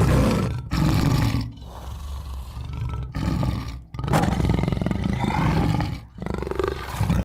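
Tiger roaring: a series of about six loud, rough roars and growls separated by short breaks.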